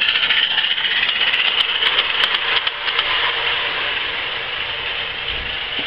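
Small live-steam garden-scale locomotive running close past with a loud, steady hiss, with a quick run of sharp clicks about one to three seconds in; the hiss eases slightly as it moves away.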